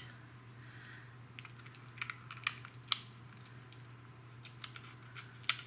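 Scattered light clicks and taps of hands and a small pointed tool pressing an acetate piece onto a paper card on a tabletop, bunched around two to three seconds in, over a steady low hum.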